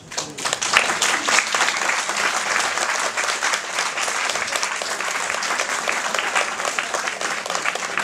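Audience applauding, a dense steady patter of many hands clapping.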